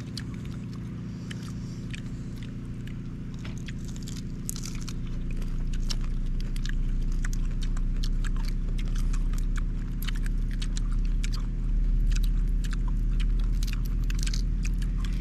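Grilled mantis shrimp shells being cracked and peeled by hand and chewed: many small, irregular crunching clicks, over a steady low hum that grows louder about five seconds in.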